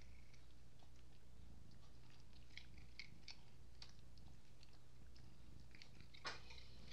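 Domestic cat purring right at the microphone: a low steady rumble with brief breaks, overlaid by faint scattered clicks and one sharper click near the end.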